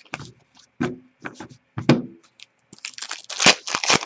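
Cardboard Upper Deck hockey trading cards being handled: a few sharp snaps and flicks as cards are set down and slid against one another, then a quick flurry of rustling card-flicks about three seconds in as the pack is thumbed through.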